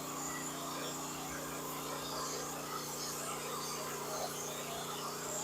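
Wood-Mizer portable band sawmill running steadily, a constant engine hum.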